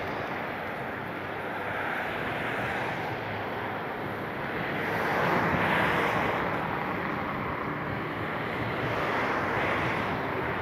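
Traffic noise from cars driving past close by on a main road: a steady rush that swells as each car goes by, loudest about five to six seconds in.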